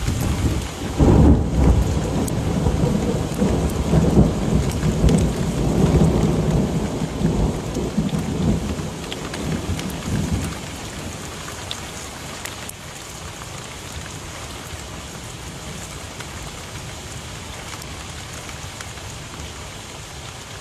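Steady rain falling, with a long rolling rumble of thunder that starts about a second in and fades away after about ten seconds, leaving the rain hiss on its own.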